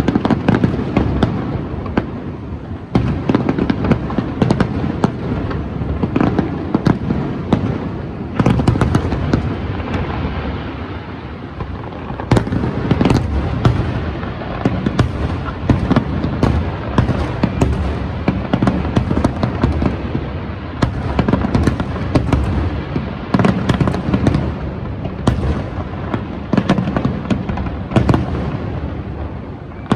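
Fireworks display: a dense, continuous barrage of bangs and booms going off in quick succession.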